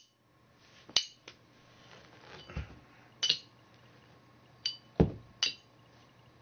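Small metal objects being handled and knocked together: several sharp clinks with a brief bright ring, spaced a second or more apart, and two dull thumps, the louder about five seconds in.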